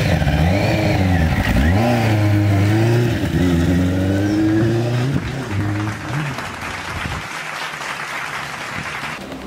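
Benelli TNT 600i's inline-four engine revving and pulling away. Its pitch dips and rises in the first couple of seconds, then climbs slowly as it accelerates, and it fades out about six seconds in, leaving a steady hiss.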